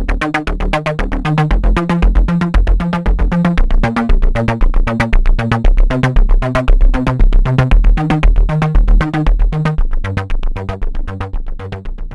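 Electronic background music: a synthesizer bass loop with a steady, even beat, fading out near the end.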